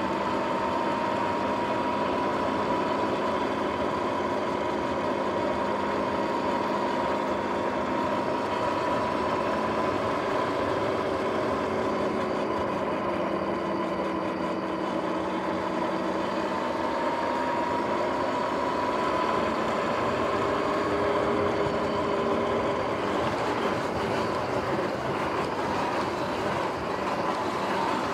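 Sur-Ron X electric dirt bike riding along, its drive whining steadily and drifting slowly up and down in pitch with speed, over a hiss of tyre and wind noise.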